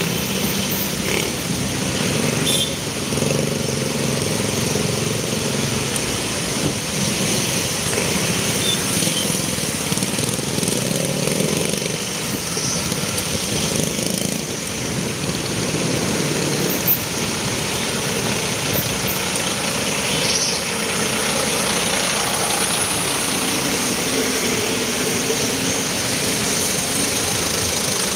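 Busy city street traffic: engines of cars, buses and motorcycles running close by under a steady rush of road noise.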